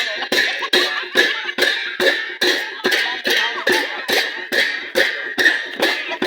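Sakela dance drumming: strokes of a drum and clashing cymbals in a steady beat, about two and a half a second, with voices between the beats.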